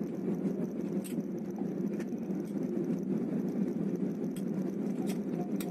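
Cabin noise of an Airbus A320-family airliner rolling out on the runway after touchdown with spoilers up: a steady low rumble from the engines and the wheels on the runway, with a few light rattles from the cabin.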